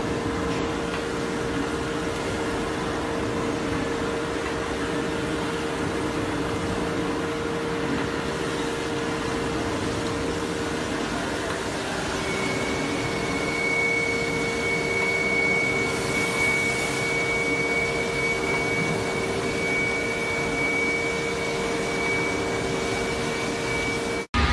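Metal-cutting machine tool running steadily as it cuts the teeth of a large steel gear: a constant mechanical hum with a steady tone in it. About halfway through, a thin high whine joins in.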